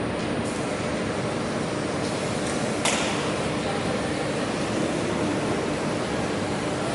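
Steady rushing mechanical hum with a faint low tone running through it, and a short sharp hiss about three seconds in.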